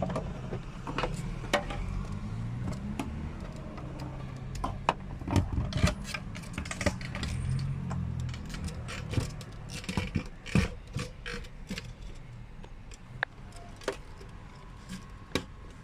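Irregular clicks and light knocks, like small parts being handled, over a low steady hum.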